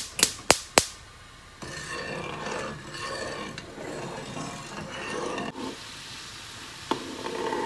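A metal spoon stirring soy-sauce-and-dashi dipping soup in a saucepan, swishing and scraping unevenly in the liquid, after a few sharp taps in the first second. Near the end it gives way to a steadier faint hiss as the soup heats toward the boil.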